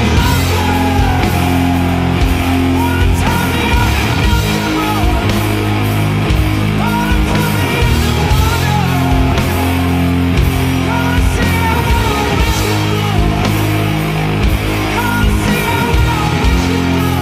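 Rock music with guitar, a steady drum beat and a melodic lead line.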